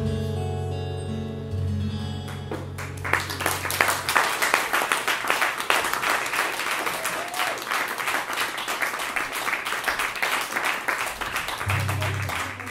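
Acoustic guitar's final chords ringing out, then a small audience clapping from about three seconds in for roughly nine seconds; a low guitar chord sounds briefly near the end.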